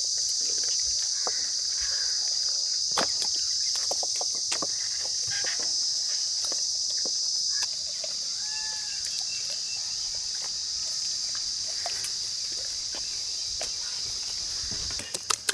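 Steady high-pitched insect chorus, a continuous shrill drone, with scattered light clicks and taps over it and a brief chirp about eight seconds in.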